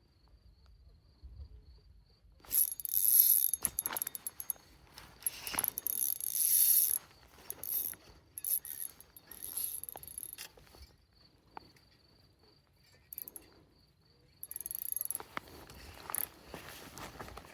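Fishing reel being cranked in three spells, its gears whirring and clicking.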